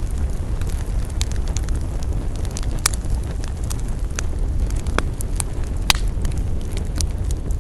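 Wood campfire crackling, with irregular sharp pops (the loudest about three and six seconds in) over a steady low rumble.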